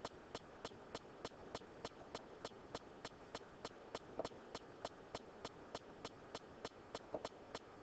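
Faint, steady mechanical ticking, about three ticks a second, over quiet room tone.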